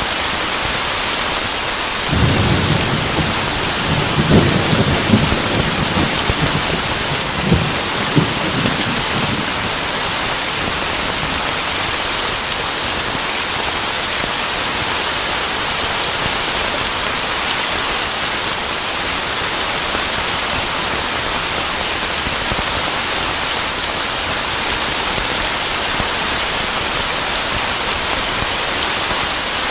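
Steady heavy rain. About two seconds in, a roll of thunder rumbles for several seconds with a few louder cracks, then dies away, leaving the rain alone.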